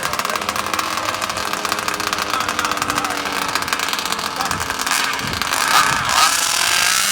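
Small two-stroke engines of gas-powered large-scale RC cars running at high revs, with quick rises and falls in pitch. They are loudest about six seconds in.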